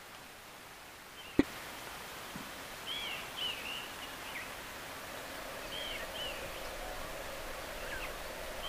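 Outdoor bush ambience: a steady hiss with birds giving short high chirps in small groups. A single sharp click comes about a second and a half in.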